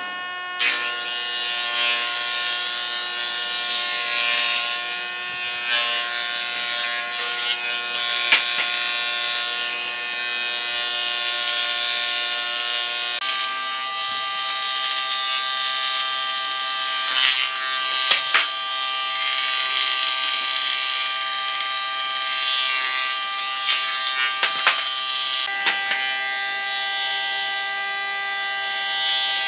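Electric power tool motor whining steadily while it works wood, with a hiss of cutting or sanding under the whine and a few sharp knocks. The pitch of the whine changes abruptly twice, about 13 and 26 seconds in.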